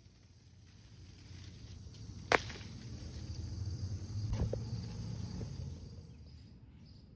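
Pepper plant leaves rustling and brushing against the phone's microphone, with a low handling rumble, as a green bell pepper is picked. A sharp snap about two seconds in, the loudest sound, and a fainter one a couple of seconds later, from the pepper stem breaking.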